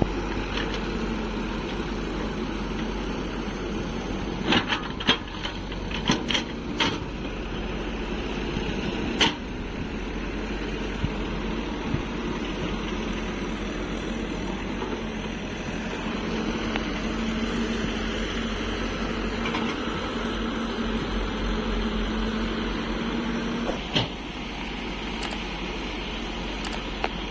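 Hyundai 140 crawler excavator's diesel engine running steadily under hydraulic load while digging mud, with a few sharp knocks: several close together about five seconds in, and single ones later.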